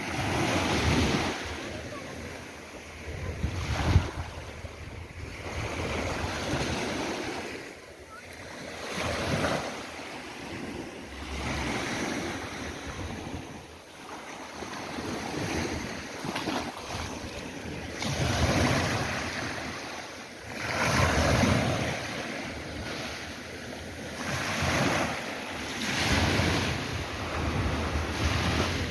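Sea waves breaking and washing ashore, the surf swelling and fading every two to three seconds, with wind rumbling on the microphone. A brief sharp thump about four seconds in.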